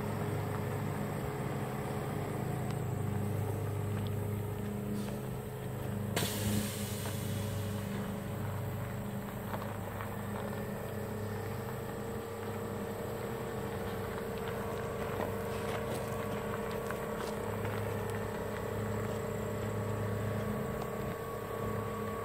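A heavy truck's engine running steadily at low revs as the rig with its fifth-wheel trailer and tote dolly backs slowly over gravel. A short burst of hiss comes about six seconds in.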